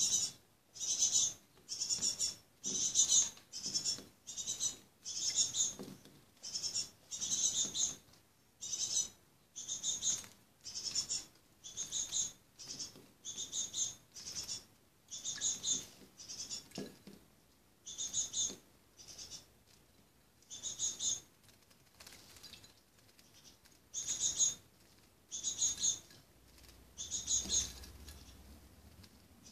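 Fledgling tits calling: a short high chirp repeated about once a second, weaker for a few seconds in the middle of the stretch.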